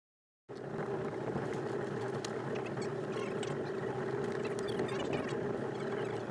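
Mercury Black Max 175 hp V6 two-stroke outboard running steadily at low speed, starting suddenly about half a second in, with scattered short high-pitched ticks over it.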